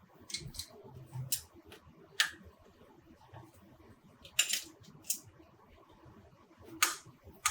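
Irregular sharp clicks and small plastic handling knocks, about seven in all: hands fitting an XT60 battery plug to a model excavator's power lead.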